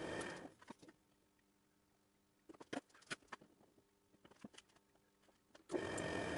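Metal lathe running, then going quiet; light clicks and knocks as a metal shaft (the bearing journal) is slid into the freshly turned bore of the clamping ring held in the four-jaw chuck. The lathe starts up again suddenly near the end.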